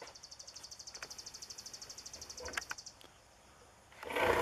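A fast, high-pitched pulsing at about fourteen beats a second for the first three seconds, followed by a few clicks. Near the end a DeWalt jigsaw starts up loud, cutting a round hole in plywood roof sheathing.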